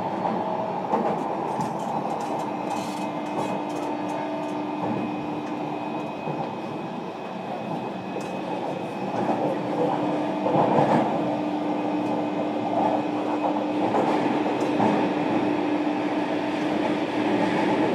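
JR Kyushu 305 series electric train running, heard from inside motor car MoHa 305-5 with the recorder right over the brake control unit. Wheels rumble and clatter on the rails under a steady motor hum, and the noise grows a little louder about ten seconds in.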